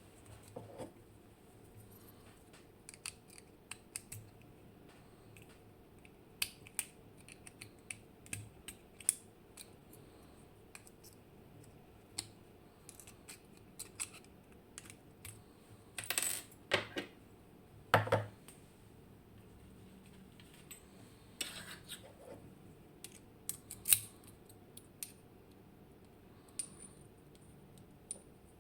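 Scattered small metallic clicks and clinks of tools and lock parts as an M&C Matrix lock cylinder is taken apart, with a few louder clinks about two-thirds of the way through.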